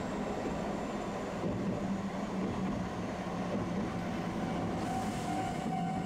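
Tosaden streetcar running on its rails, a steady low rumble of wheels and motor. About five seconds in comes a short hiss, and a steady high tone starts near the end.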